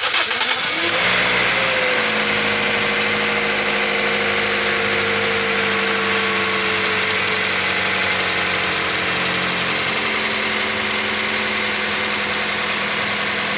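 Toyota 1NZ-FE 1.5-litre four-cylinder engine starting and running at a steady idle with the radiator cap off, so the coolant starts circulating and air can be bled from the cooling system. One tone in the engine note falls slowly over the first several seconds.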